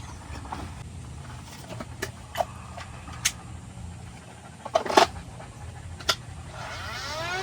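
A few sharp clicks and knocks over a low steady hum, then near the end a motor starts up with a rising whine.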